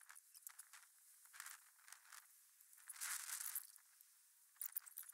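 Near silence, with faint scattered crackles and hiss coming and going.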